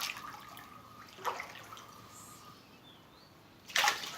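Water lapping faintly as toys are moved about in it, with a small click about a second in and a short splash near the end.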